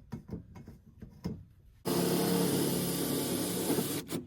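A few light knocks and clicks, then a power drill starts suddenly about two seconds in and runs steadily for about two seconds before stopping, driving in a mounting bolt of the rooftop air conditioner.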